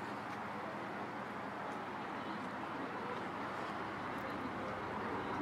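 City street ambience: a steady wash of traffic noise, with faint voices of passers-by rising near the end.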